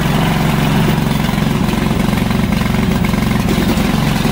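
Gasoline engine of a remote-control crawler mower running steadily just after being started with its start lever.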